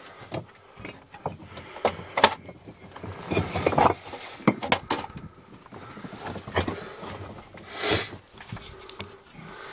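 Irregular knocks, clacks and scrapes of loose bricks shifting under people crawling over rubble in a narrow brick tunnel, with a louder rustling scrape near the end.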